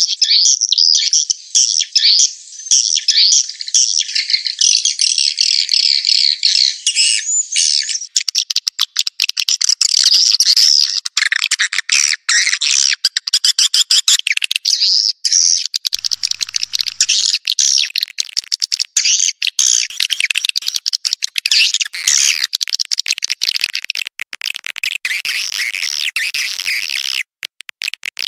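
Swiftlet lure call: a loud, dense recording of many swiftlets chirping and twittering, with sharp clicking running through it from about eight seconds in. It is the kind of sound played from a swiftlet house to attract the birds in to roost and nest.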